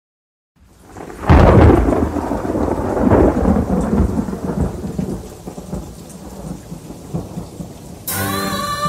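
Thunder rumbling over steady rain: a loud low roll about a second in and a second swell a couple of seconds later, dying away into the rain. Music starts near the end.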